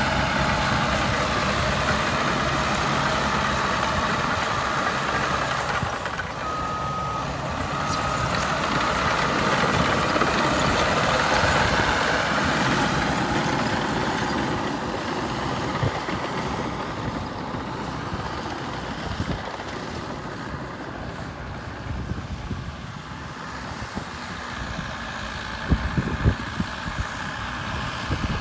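Caterpillar D6R2 bulldozer's diesel engine running steadily under work. A reversing alarm beeps twice about seven seconds in, and a few sharp metal clanks come near the end.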